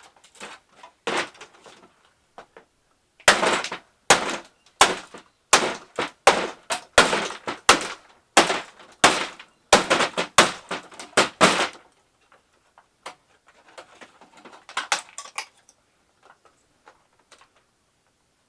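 A run of about fifteen hard blows, roughly two a second, struck to bust open the plastic housing of a Shark vacuum cleaner, then light clicks and rattles of loose pieces.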